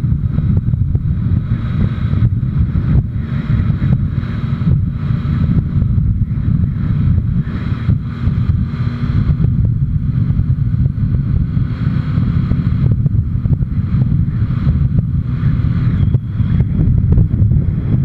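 Wind buffeting the microphone of a camera on a moving motorcycle at road speed, a heavy steady low rumble, with the motorcycle's engine running underneath.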